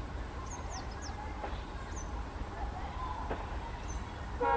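Outdoor trackside ambience: a steady low rumble with several short, high bird chirps. Right at the end a train horn starts to sound.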